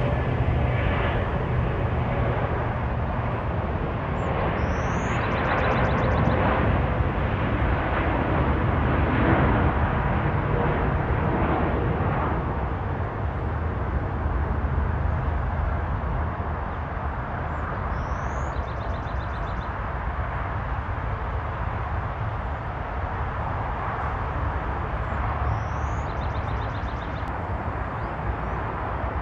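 Steady low rumble of distant aircraft engines, swelling slightly about nine seconds in and then easing off, with three short high chirps.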